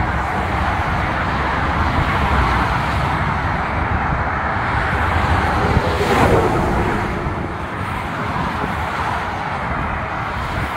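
Steady roar of highway traffic, with one louder vehicle going by about six seconds in.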